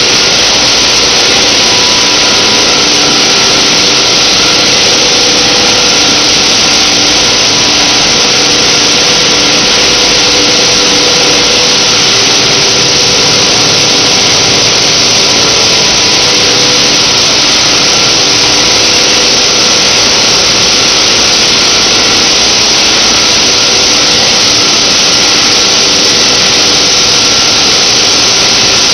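Steady, loud din of a PET bottle recycling line running, with its motors and washing and drying machinery going together and a few faint steady hums underneath.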